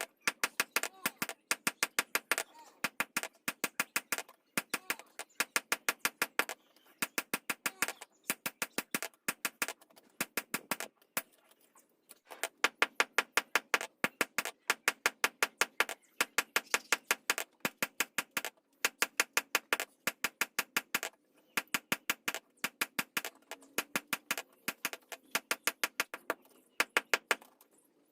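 Hammer tapping in quick runs of several sharp strikes, about five a second, with short pauses between the runs.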